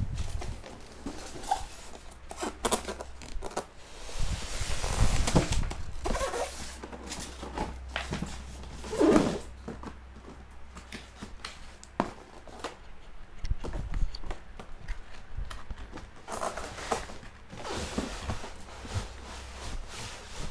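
Parcel packaging being handled and torn open: rustling and tearing, with one longer tearing sound about four seconds in and scattered clicks and knocks.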